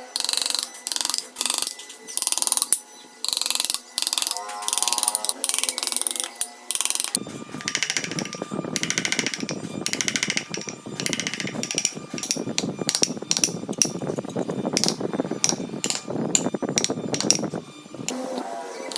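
Woodworking tools cutting and shaping wood in short on-off bursts, changing about seven seconds in to a denser, deeper, continuous rasping that stops shortly before the end.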